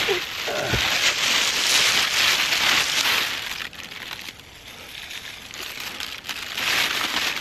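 Thin plastic carrier bag crinkling and rustling, along with leafy stems, as handfuls of freshly picked prickly puha (prickly sow thistle) are pushed into it. The rustle is loudest for the first few seconds, eases off past the middle and picks up again near the end.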